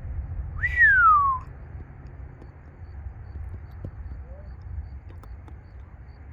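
A single clear whistled note about half a second in, sliding steadily down in pitch for most of a second, over a low steady rumble.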